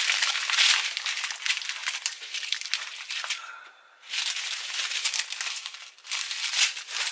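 Small plastic bags of diamond-painting drills being handled and sorted, crinkling with many small clicks. It stops briefly about three and a half seconds in.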